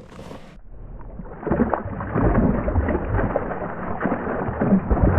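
Low rumbling noise with a few knocks, typical of wind buffeting the microphone on a kayak on open water; it swells about a second and a half in.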